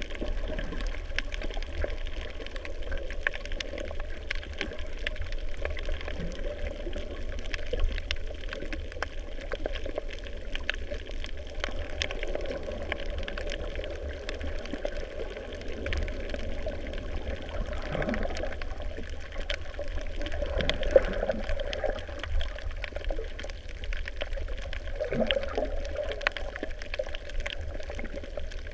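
Muffled underwater sound picked up by a submerged camera: a steady low rumble of moving water with many faint scattered clicks and crackles, and a few short gurgles.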